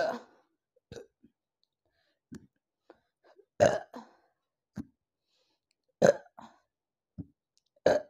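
A woman burping loudly after drinking a litre of a carbonated apple soft drink: four short burps about two to three seconds apart, with fainter short sounds between them.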